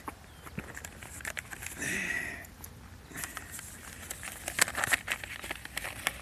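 Rummaging through a shoulder bag: rustling and crinkling of the bag and the paper or plastic inside, with many small clicks and crackles that grow busier from about three seconds in. A brief high tone sounds about two seconds in.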